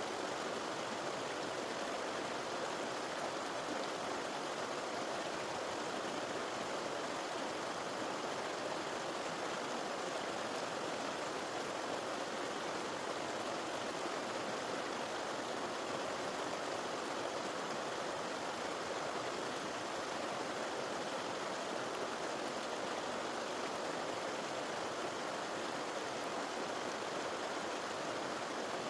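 A river's water rushing steadily, with no breaks or separate events.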